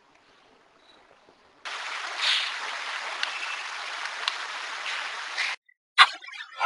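Steady, loud hiss that switches on abruptly about one and a half seconds in and cuts off about four seconds later into dead silence, with a few faint clicks in it. It is amplified recorder noise edited in as a possible EVP (ghost voice) response.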